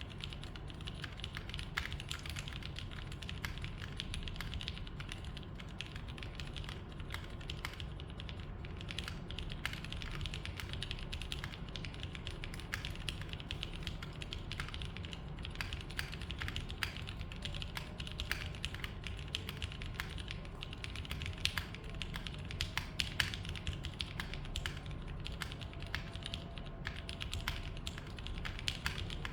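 Continuous typing on a Matrix Corsa mechanical keyboard with franken switches (Cherry bottom housings, Gateron Ink V1 stems, Gateron Milky tops). A steady, quick stream of keystroke clacks.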